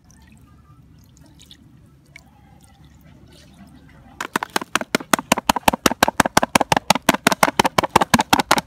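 Sauce poured faintly from a bottle over raw chicken feet in a plastic tub. About four seconds in, a loud, fast, even knocking starts, about eight knocks a second.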